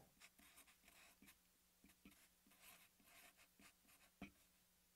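Very faint marker-pen strokes and light taps on paper while writing, with one sharper tap about four seconds in, over a faint low hum.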